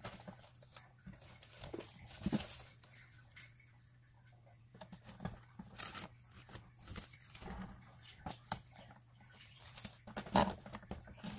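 Plastic cling wrap crinkling and crackling as it is stretched and pressed onto the rim of a glass bowl, in scattered small clicks with a couple of sharper ticks, about two seconds in and near the end.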